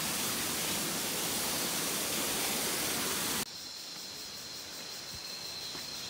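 Steady rushing noise of stream water. After an edit cut about three and a half seconds in, it gives way to quieter forest ambience with a steady high-pitched whine and a few faint ticks.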